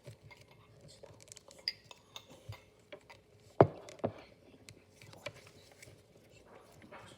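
Scattered light clicks and clinks, with one sharp knock about three and a half seconds in and a smaller one just after.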